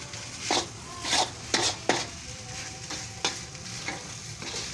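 Fried rice sizzling in a wok, with a metal spatula or spoon scraping and clacking against the pan several times, sharpest in the first two seconds.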